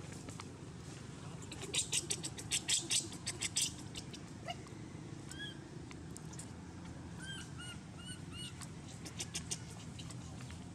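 Short high squeaks from a baby monkey: one, then five in quick succession in the second half. Earlier there is a brief run of sharp crackles.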